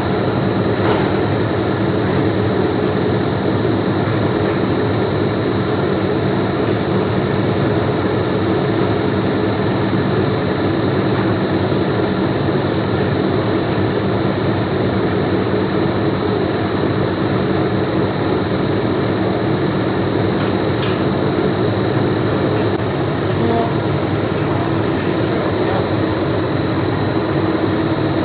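Factory machinery running steadily: a continuous loud drone with a constant high-pitched whine over it.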